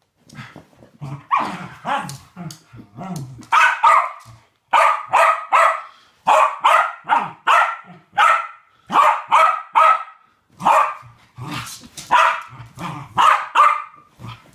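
West Highland White Terrier play barking: a long run of sharp, high barks about two a second, with low growling in the first few seconds.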